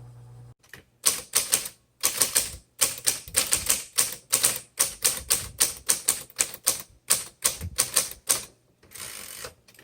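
1970s Smith Corona Deville electric typewriter being typed on quickly: sharp key strikes in fast runs with short pauses, then a brief whirring rush near the end. A steady motor hum stops about half a second in.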